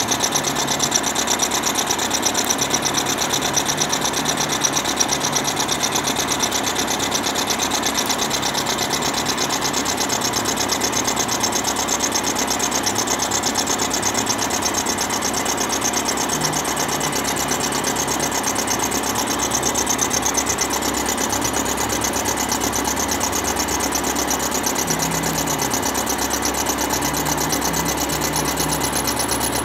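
End mill taking a roughing cut in Ampco 18 aluminium bronze on a milling machine: a steady cutting buzz with a rapid, even pulsing from the cutter's teeth biting the metal.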